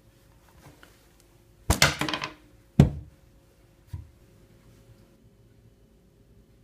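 Handling noise as the wrapped lolly is taken out of the plush teddy's mouth: a short crinkling rustle nearly two seconds in, then a sharp knock, the loudest sound, and a softer thump about a second later.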